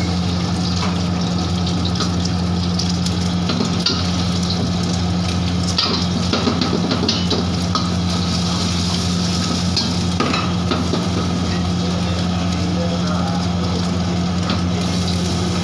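Egg sizzling in hot oil in a wok, with a metal ladle scraping and clinking against the wok now and then as the egg is stirred and scrambled. A steady low hum runs underneath.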